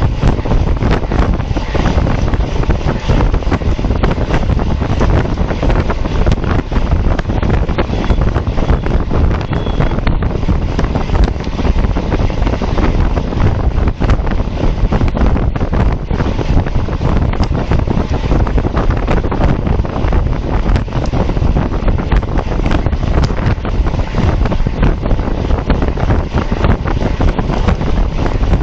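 Wind buffeting the microphone of a camera riding on a road bike in a race, a loud, steady, deep noise with no break.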